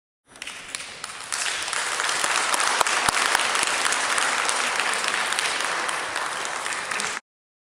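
A crowd of spectators applauding. The clapping comes in just after the start, grows louder about a second later, holds steady, and cuts off suddenly near the end.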